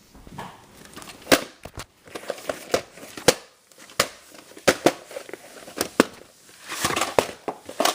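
A VHS tape and its plastic case being handled and opened: a string of irregular, sharp plastic clicks and crackles.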